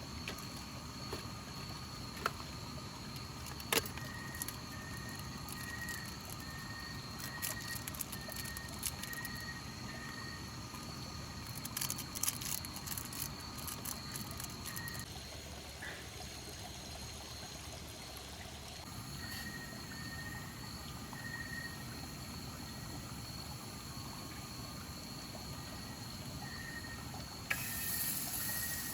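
Outdoor night ambience: a steady high-pitched insect drone over a low rush of running water, with a short call repeated about twice a second in two runs and a few scattered clicks.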